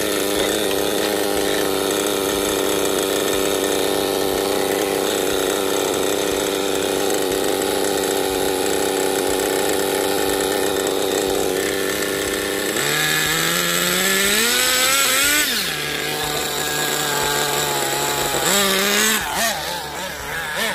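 Redcat Tornado S30's small two-stroke nitro engine idling steadily, then revved about 13 seconds in, its pitch climbing for a couple of seconds before dropping back, and revved again briefly near the end.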